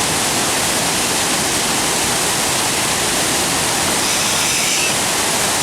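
Steady, loud rush of a waterfall pouring into its pool close by.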